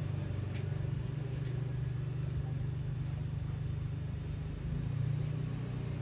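Steady low mechanical hum with a faint hiss over it, swelling slightly about five seconds in, with a few faint clicks in the first second and a half.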